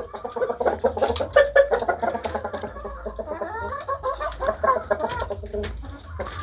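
Shamo chickens in a bamboo coop clucking, a busy run of short, repeated calls.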